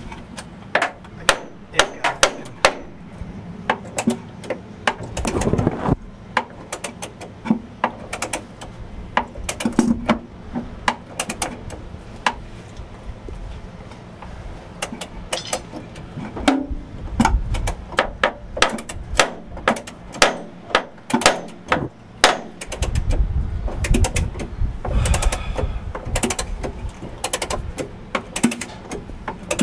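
Hand ratchet wrench clicking in short, irregular runs of strokes as bolts on a landing-gear fitting are worked, with sharp metallic clicks and taps. A low rumble joins about three-quarters of the way through.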